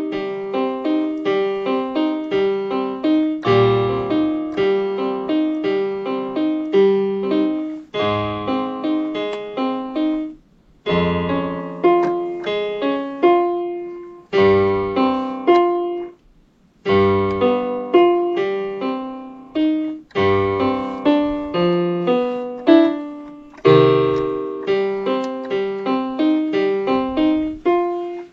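Piano tune played on a keyboard by someone practising a song: single notes and chords struck and left to ring, in repeating phrases, with brief pauses about eleven and sixteen seconds in.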